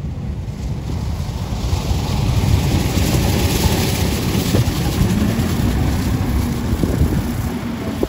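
Sasara densha snow-sweeper tram passing close, its spinning bamboo brooms sweeping snow off the tracks with a rushing hiss over the rumble of the car. The noise swells over the first few seconds as it comes alongside, then holds steady.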